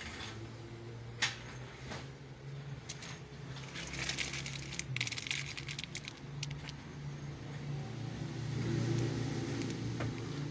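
Plastic parts packaging crinkling and rattling in the hand, with scattered sharp clicks and crackles, over a steady low hum that grows louder in the second half.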